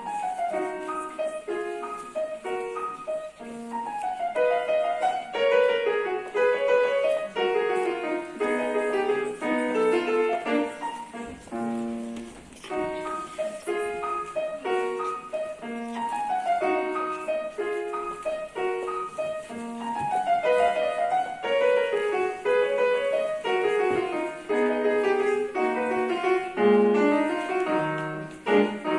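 Piano playing an étude: a steady stream of short notes in the middle register, in runs that go up and down. The piece closes on a low note near the end.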